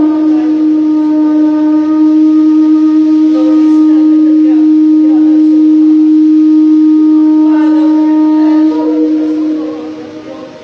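A loud, long horn-like blast held on one steady note. It fades out near the end as a slightly higher note comes in.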